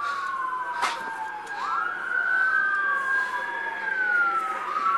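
Two emergency-vehicle sirens wailing out of step, each swooping up quickly and falling slowly in pitch, with a single sharp click just under a second in.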